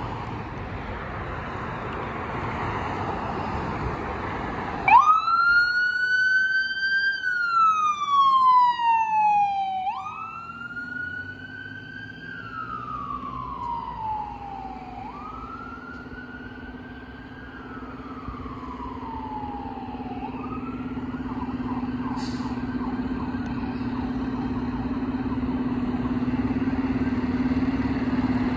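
Ambulance siren starting up about five seconds in with a slow wail, three rising-and-falling sweeps of about five seconds each. It changes to a faster pulsing tone and fades away as the ambulance drives off. Before the siren, passing traffic can be heard; a steady low hum builds through the second half.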